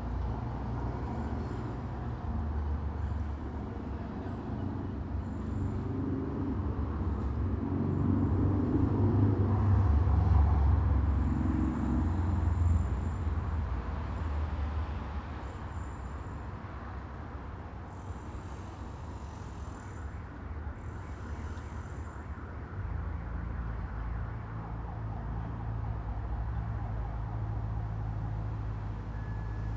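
Street traffic heard from inside a room: a steady low rumble of passing vehicles, swelling louder for a few seconds as a heavier vehicle goes by, then settling to a lower hum.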